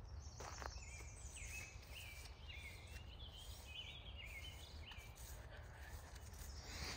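A songbird singing a run of short chirping, warbling notes for a few seconds, over a faint low rumble.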